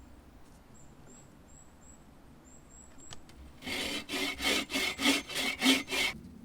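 Hand saw cutting through wood in a quick run of about ten back-and-forth strokes, about four a second, starting after a few quiet seconds. Faint high chirps repeat before the sawing begins.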